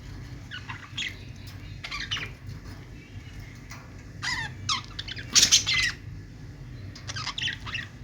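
Small pet parrots chirping and squawking in short, scattered calls that slide down in pitch, with the loudest burst of calls a little past halfway.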